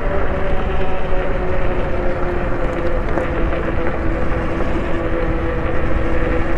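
Electric bike motor whining at a steady pitch that sags slightly as it cruises, under heavy wind rumble on the microphone.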